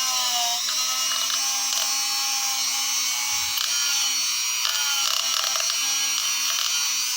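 Electric die grinder running steadily at fairly low speed while it grinds into the inside of the steel jaws of a pair of lineman's pliers, its motor whine dipping slightly in pitch as the tool bites, with scratchy grinding on the metal.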